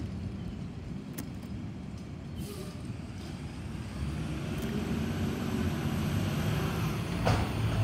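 Engine of an approaching automated side-loading recycling truck, a low rumble growing louder from about halfway through, with one brief sharp sound near the end.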